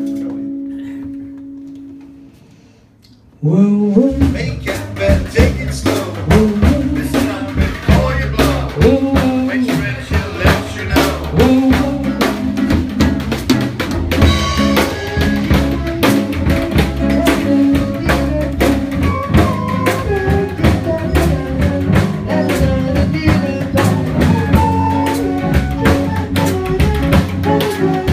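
Band music: a held guitar chord rings and fades away, then about three and a half seconds in the drum kit comes in with the bass and guitar, and they play an up-tempo swing-blues groove with busy snare, rimshots and bass drum. No horns and no singing.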